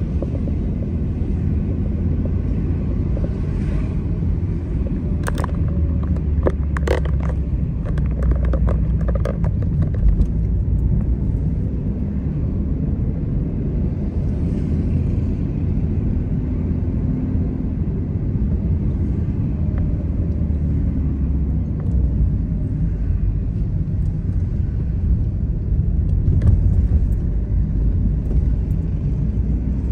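A car driving, with a steady low rumble of engine and road noise. A scatter of short clicks and knocks comes about 5 to 10 seconds in.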